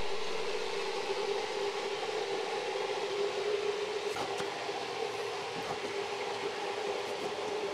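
A machine running steadily: a constant hum over an even whirring hiss.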